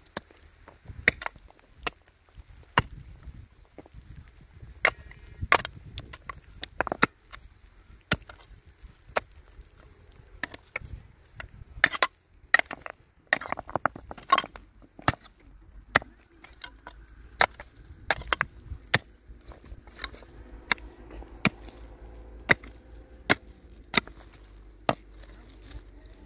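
Short-handled hand hoe repeatedly chopping into stony soil, its metal head knocking against stones and earth in sharp, uneven strikes about one to two a second.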